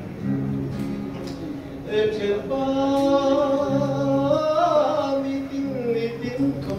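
A man singing to his own acoustic guitar accompaniment, holding one long note through the middle of the phrase.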